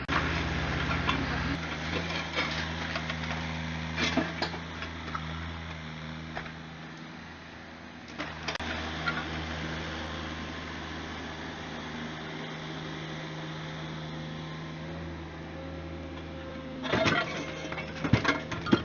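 Mini excavator's diesel engine running steadily, with sharp clattering knocks of rubble and metal striking a few times, most in a cluster near the end.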